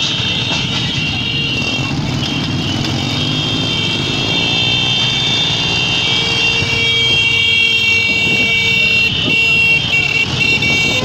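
Motorbike ride through traffic in a wedding car procession: a steady engine and road rush with several horns held on over it, a lower horn note joining for a few seconds in the middle.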